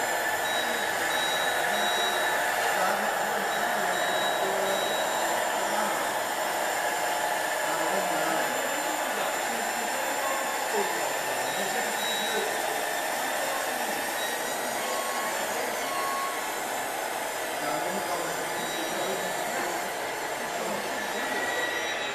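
Steady whirring hum of radio-controlled model trucks working in a busy hall, with a tipper trailer's body being raised, and faint short high beeps now and then.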